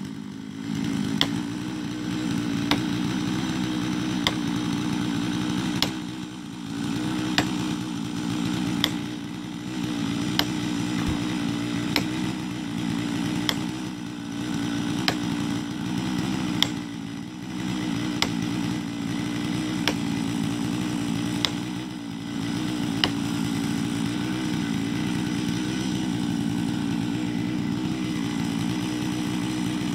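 Stihl MS 660 two-stroke chainsaw idling steadily, with about fifteen sharp hammer blows, roughly one every second and a half, driving a felling wedge into the cut. The blows stop about 23 seconds in, leaving the saw idling alone.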